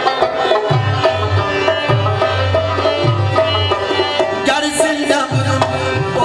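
Instrumental interlude of an Afghan chaharbaiti folk song: tabla drumming under a plucked-string and melody-instrument line, with a steady beat and no vocal.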